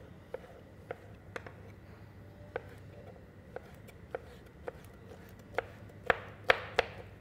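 Kitchen knife chopping a yellow bell pepper on a cutting board: separate knife strikes, about one every half second to a second, with a few louder chops near the end.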